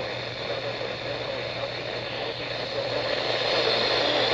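Steady hiss with a low hum underneath, growing louder about three seconds in.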